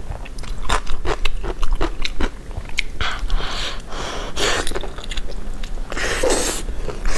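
Close-miked eating of sticky braised trotters: wet lip smacks, biting and chewing, with a longer sucking hiss about three seconds in and again about six seconds in.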